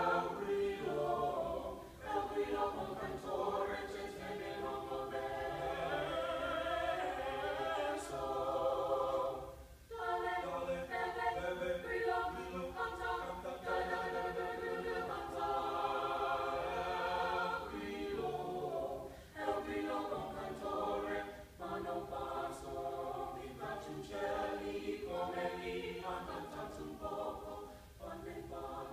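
Small mixed high school chamber choir singing a cappella in sustained chords, phrase by phrase, with brief breaks between phrases.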